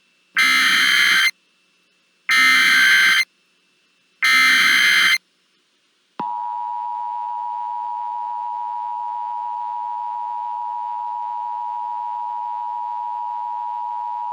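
Emergency Alert System SAME header: three harsh, screechy data bursts, each about a second long and a second apart. About six seconds in, the EAS attention signal follows: a steady two-tone alarm held unbroken.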